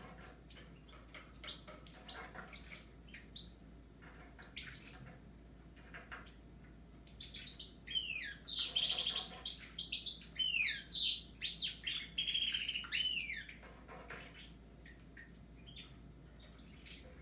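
Caged goldfinches and canaries chirping softly with light clicks, then a loud burst of fast song with swooping notes lasting about five seconds from around the middle, before it drops back to soft chirps.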